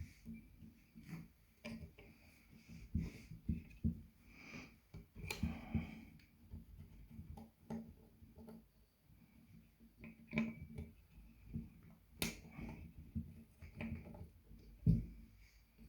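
Irregular small clicks and light knocks from hands and tools working on a graphics card's fan and small parts, about one every second, with a louder knock about five seconds in and a sharp click a little after twelve seconds.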